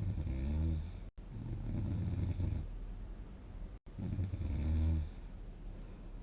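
A sleeping person snoring: three snores in a row, the middle one the longest.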